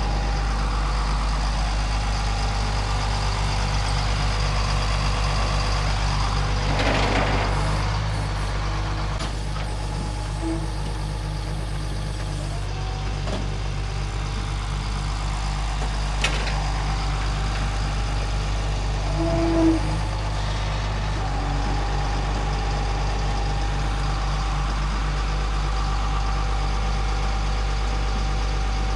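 Flatbed tow truck's engine running steadily while its winch pulls a pickup up the tilted bed. A brief hiss comes about seven seconds in and a sharp click around sixteen seconds.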